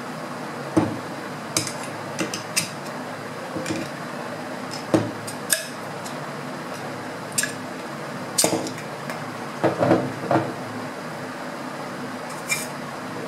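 Irregular metallic clinks and knocks as an air rifle's steel compression tube and piston are worked apart with a screwdriver, about fifteen sharp strikes spread unevenly, with a few quick clusters past the middle.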